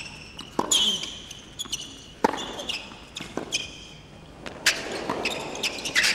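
Tennis rally on a hard court: sharp racket strikes and ball bounces about once a second, with short shoe squeaks on the court surface between them.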